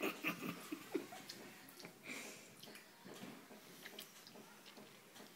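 A baby eating spaghetti with her hand: soft, wet smacking and squelching mouth sounds with small clicks, busiest in the first two seconds.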